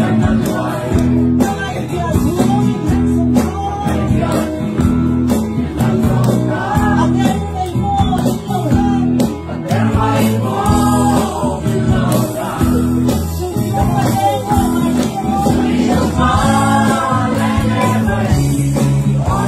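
Singing in Mizo with guitar accompaniment: a sung melody over steadily strummed chords.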